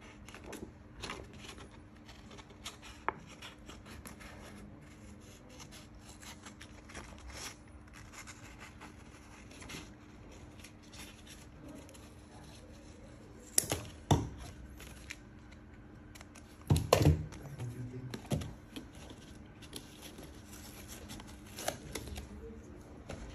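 Scissors snipping through sheet paper in a run of short, crisp cuts, with paper rustling between them. A few louder knocks come around the middle.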